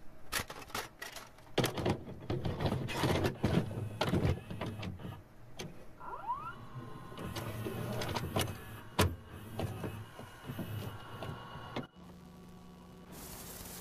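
VCR loading a VHS cassette: a run of clicks and clunks with a motor whirring as the tape is taken in and threaded. About twelve seconds in it settles into a steady hum as playback starts, and a hiss comes in near the end.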